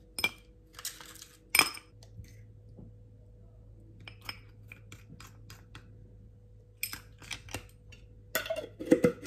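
Ice cubes dropped clinking into a tall drinking glass, then a metal spoon clinking against a glass jar and the glass while scooping out plum slices in syrup. A string of short sharp clinks, the loudest cluster near the end.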